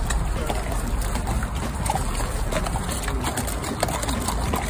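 Saddle horses walking on a muddy, leaf-strewn forest track, their hooves giving scattered soft steps in the mud and leaves, under a steady low rumble on the microphone.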